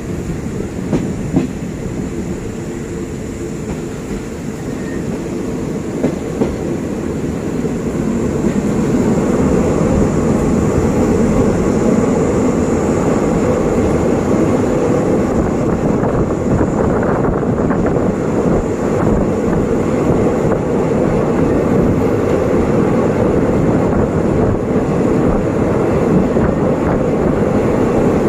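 Passenger train running, heard from aboard a carriage: a steady rumble of wheels on rail with a few sharp clicks in the first seconds. The rumble grows louder about eight seconds in and stays so as the train runs over a riveted steel truss bridge.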